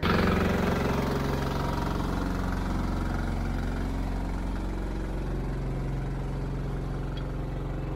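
Water tanker truck's diesel engine running fast and steady, driving its pump to draw dam water up the suction hose. It comes in suddenly at the start and eases off a little over the first seconds.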